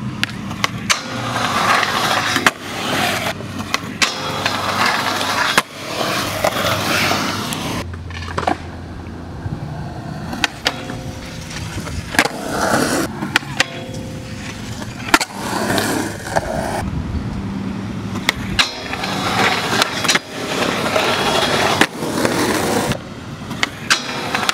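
Skateboard wheels rolling on smooth concrete in several runs, broken by sharp clacks of boards popping and landing, and a board sliding along a metal handrail.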